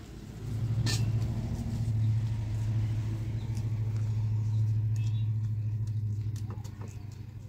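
A motor vehicle's engine humming steadily, swelling up about half a second in and fading near the end. A sharp crack about a second in, with a few light clicks.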